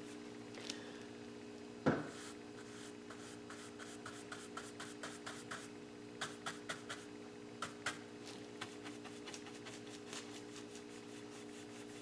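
Wide flat paintbrush scrubbing and dabbing oil paint on a canvas and a paper palette: faint rubbing strokes and a run of light taps, with one louder knock about two seconds in. A steady low hum sounds underneath.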